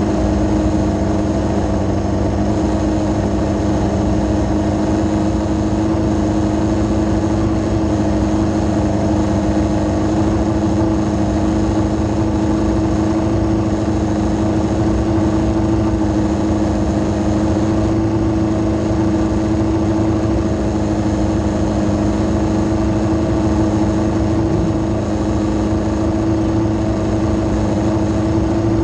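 Yamaha R6 inline-four engine of a micro sprint car idling steadily at an unchanging pitch.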